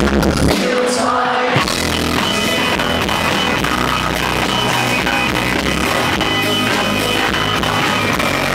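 Live indie rock band playing loud, with guitar, keyboards and drums. About half a second in the bass and drums drop out, leaving the higher parts, and the full band crashes back in about a second later.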